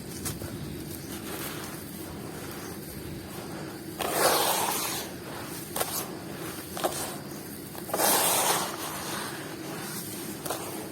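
Crunchy ASMR pieces being smashed and crumbling: two loud crunching bursts about four seconds apart, with a few short crackles between them.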